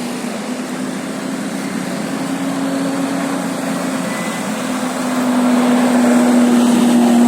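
A bus engine running with road noise, a steady low hum that grows louder about five seconds in as the bus comes closer.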